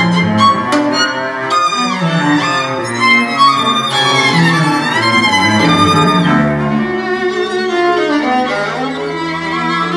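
A recording of bowed string music played back, with violin and cello lines. About four to five seconds in there is a sliding pitch glide.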